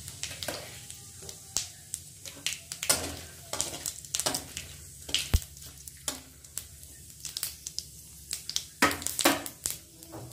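Cumin seeds, bay leaves and dry red chillies sizzling and crackling in hot oil in a kadai, with irregular pops, stirred with a wooden spatula. One sharp knock comes about five seconds in.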